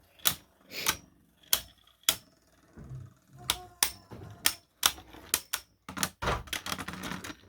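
3D-printed plastic beyblades clashing in a stadium: a run of sharp, irregular clacks that crowd into a quick rattle near the end as the tops trade hits.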